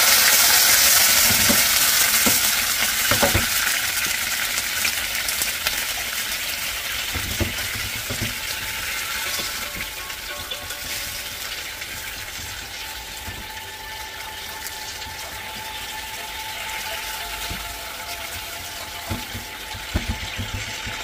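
Dark sauce sizzling and bubbling in a hot nonstick frying pan. It is loudest at the start and slowly dies down, with a silicone spatula stirring and tapping against the pan now and then.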